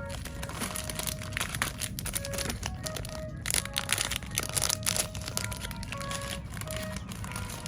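Plastic packaging crinkling in rapid crackles as bagged mini squishy toys are handled and squeezed, busiest around the middle. Under it, background music plays a simple melody of short notes.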